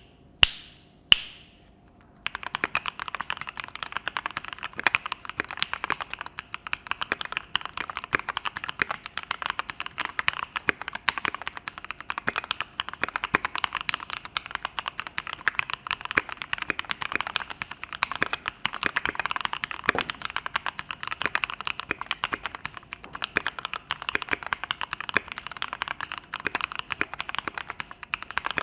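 Keychron Q2 mechanical keyboard being typed on continuously in a sound test: a rapid, dense clatter of keystrokes. It starts about two seconds in, after two separate sharp clicks.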